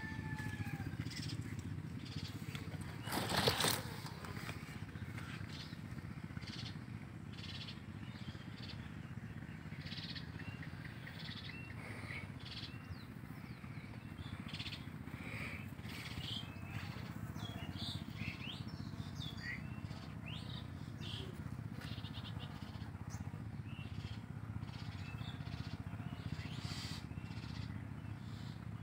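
Outdoor farm ambience: scattered short bird chirps and calls over a steady low background noise, with one brief loud noise about three seconds in.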